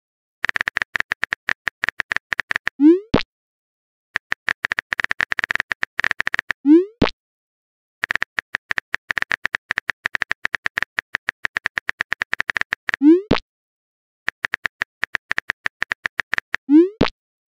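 Phone keyboard typing clicks in quick runs of a few seconds, each run ending in a short rising pop and a click as a text message is sent, four times over.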